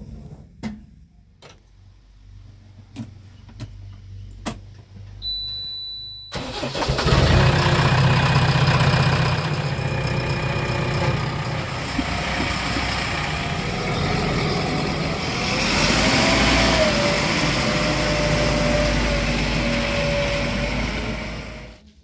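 A few sharp knocks and clicks from the JCB 3DX backhoe loader's cab, then a short high tone. About six seconds in, the loader's four-cylinder diesel engine starts suddenly and runs steadily, with a whine that rises and then holds steady near the end.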